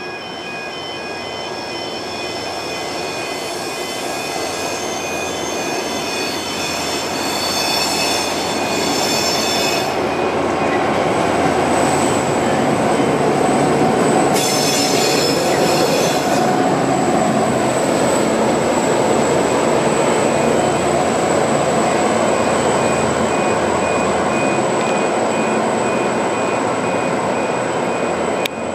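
V/Line N class diesel-electric locomotive running light engine slowly into the station, its engine growing louder as it approaches, then running steadily as it passes. High-pitched wheel squeal sounds over the first ten seconds or so and again briefly around the middle.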